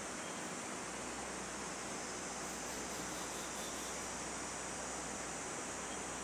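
Steady, even hiss of background room noise, with no distinct sounds standing out.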